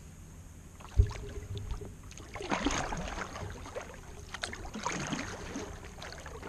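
Kayak paddle blades dipping and splashing in calm sea water, a few strokes with dripping in between, after a single low thump about a second in.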